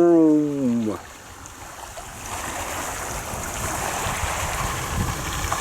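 A man's voice gives one drawn-out vocal sound that falls in pitch, then about two seconds in a steady rushing noise sets in and holds.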